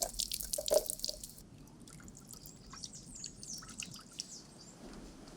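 Gesso being mixed with water: quick splashes and drips of liquid in the first second or so. Faint high bird chirps follow.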